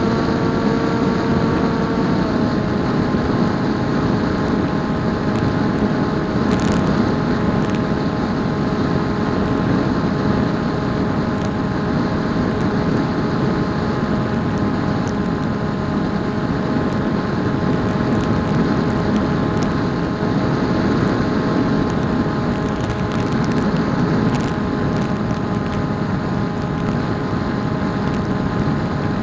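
PopWing RC flying wing in flight: its electric motor and propeller hum steadily under a heavy rush of wind, with the motor's pitch shifting about two seconds in as the throttle changes.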